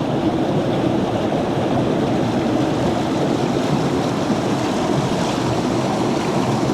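Swift creek water rushing steadily through a stretch of white water.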